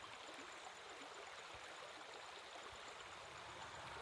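Faint, steady rushing of a strong river current.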